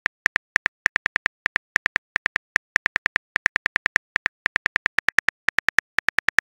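Simulated phone-keyboard typing clicks: short, identical key taps, about six to eight a second with brief gaps, as a text message is typed out letter by letter.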